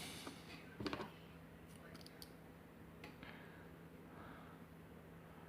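Faint clicks and ticks of a padlock and small tools being handled, with a short cluster of clicks about a second in and a few lighter ticks after.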